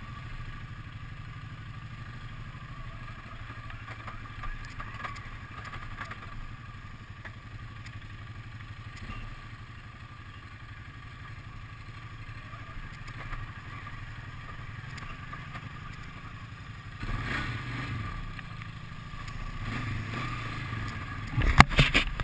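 ATV engine running at a steady low speed on a rough dirt trail, with rattles and clatter from the machine over the bumps. The engine gets louder partway through, and a few loud knocks come near the end.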